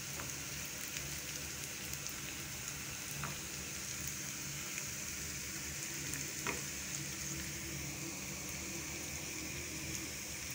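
Sliced onions sizzling steadily in hot oil in a nonstick frying pan as they are browned, stirred with a spatula, with a few faint ticks and a low steady hum underneath.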